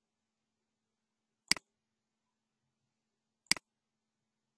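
Two sharp computer mouse clicks about two seconds apart, each a quick press and release.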